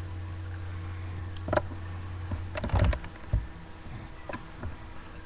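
Handling noise: a few scattered soft clicks and knocks, with a small cluster about three seconds in, over a steady low hum that fades out around the same time.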